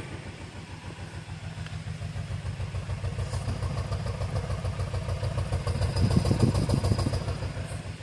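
Mercedes E300's 2.0-litre M274 four-cylinder petrol engine idling, heard at the tailpipe as a steady run of low exhaust pulses. It is idling with a misfire, the sign of a dead cylinder: cylinder 1 has no compression.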